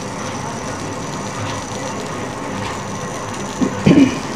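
Steady hiss with a rattling crackle from the speakers of an old 21-inch Samsung CRT television, running on its newly fitted universal main board while its sound output is tested.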